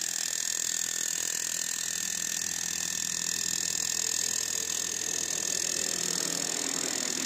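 Cordless Milwaukee SDS Max rotary hammer in hammer mode, hammering rapidly and steadily on a ground rod as it drives the rod down into hard dirt.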